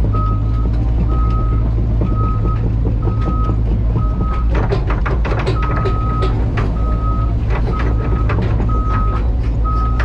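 Heavy diesel excavator engine running under load with a steady low hum, over an alarm beeping at a single pitch roughly every 0.7 seconds. A burst of metallic clattering and knocking comes about halfway through.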